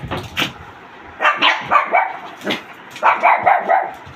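Puppy barking and yipping in a run of short, high bursts, several in quick succession.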